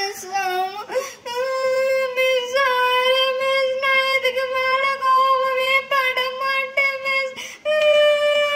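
A girl's voice crying in role-play: several long, drawn-out wails held on nearly one pitch, wavering slightly and broken by short catches of breath.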